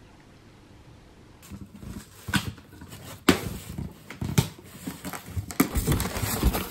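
Faint room tone, then from about a second and a half in, cardboard shipping boxes being handled and opened: sharp knocks and scrapes of cardboard and rustling of crumpled paper packing.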